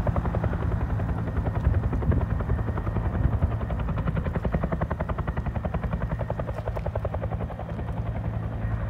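Bell 212 helicopter's two-blade main rotor beating in a fast, even chop of about ten beats a second, over the steady run of its turbine engines.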